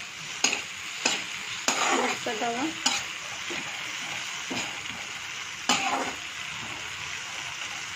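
A slotted metal spatula stirring tomatoes, garlic and dry red chillies frying in oil in a wok: a steady sizzle, with scrapes of the spatula against the pan several times in the first three seconds and once more near six seconds in.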